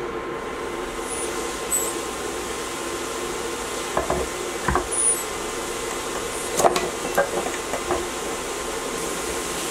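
Mixed vegetables steaming and simmering in about an inch of water in a skillet: a steady sizzling hiss with a low hum under it. A few light clinks sound about four seconds in and again around seven seconds.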